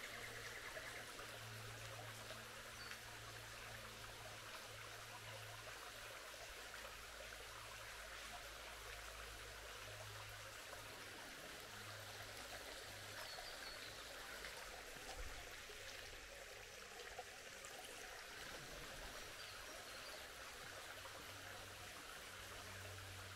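A creek running: a faint, steady rush of flowing water.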